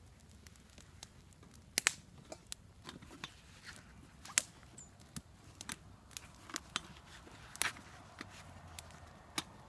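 Wood campfire crackling, with irregular sharp pops, the loudest about two seconds in, past four seconds and near eight seconds.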